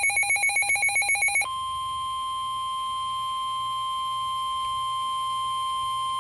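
A rapid warbling electronic alert tone, about eight pulses a second, switches about a second and a half in to one steady high tone. This is the NOAA Weather Radio 1050 Hz warning alarm tone that introduces a warning broadcast.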